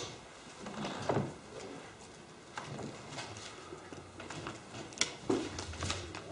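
Bible pages being turned by hand: scattered soft paper rustles and a few light clicks.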